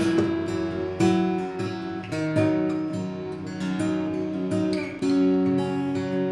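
Acoustic guitar music, a steady run of plucked notes with the chords changing every second or two.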